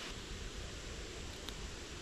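Steady rush of flowing creek water, with a faint click about one and a half seconds in.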